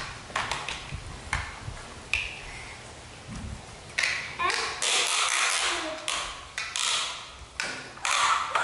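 Hard plastic toy truck clattering and knocking as a baby monkey climbs over it: a run of sharp clicks and short rattles, busier in the second half.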